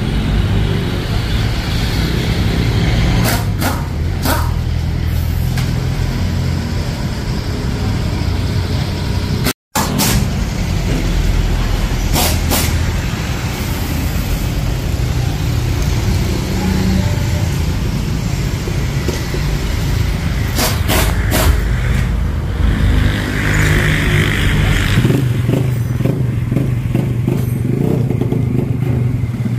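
A motor vehicle engine runs steadily, its pitch shifting a little about 25 seconds in, with a few sharp clicks and taps over it. The sound drops out completely for a moment about ten seconds in.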